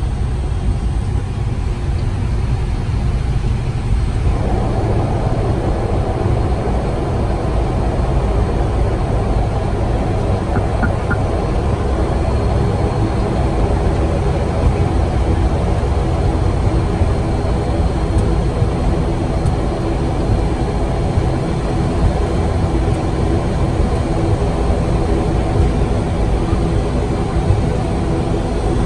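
Cockpit noise of an ATR 72-600 turboprop rolling out on the runway after landing: a steady rumble from its Pratt & Whitney PW127 engines and propellers. About four seconds in, the engine note changes and several steady tones come up louder.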